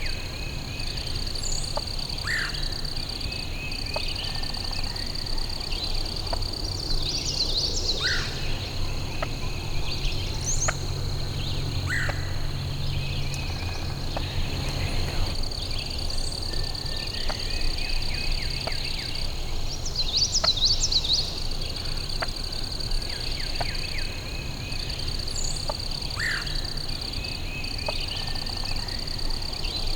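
Woodland birds calling and singing at a swamp edge, with short chirps and whistles scattered throughout. A steady high trill from frogs or insects runs under them, breaking off now and then.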